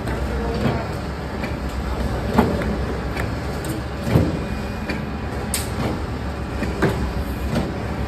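Green soap bars knocking and sliding against a metal table as rows of them are pushed along, with a few sharp knocks scattered through, over a steady low machinery hum.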